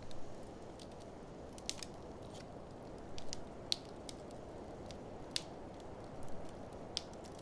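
Wood fire in an open fireplace crackling, with irregular sharp pops and snaps scattered through a steady low rushing background.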